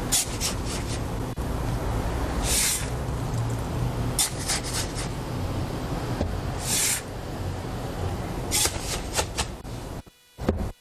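Basalt sand being scooped from a bin and poured into a plastic bucket: short gritty scrapes and hissing pours, about five in all, over a steady low rumble.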